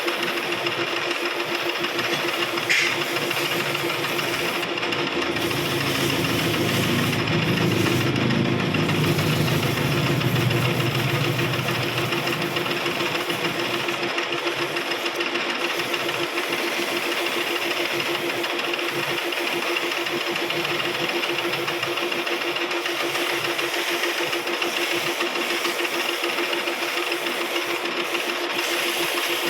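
Lathe running with a steady hum while a cutting tool works the spinning stock, making a continuous scraping hiss. A lower, louder tone swells in for several seconds in the middle as the cut bites harder.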